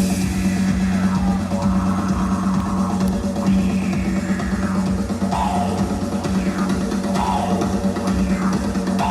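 Rock music with a drum kit and a steady low held note underneath.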